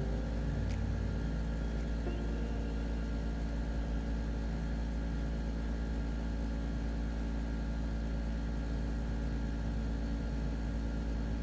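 Steady low mechanical hum that does not change, with a faint tick under a second in and another about two seconds in.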